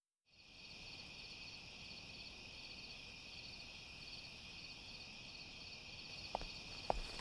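Night insect chorus of crickets trilling steadily, fading in just after the start. Near the end come two footsteps of shoes, about half a second apart.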